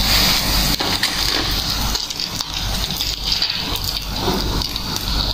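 Mullet frying in hot oil in a pan: a steady, dense crackling sizzle, with a few sharp clicks as a spatula works against the pan to lift the fish out.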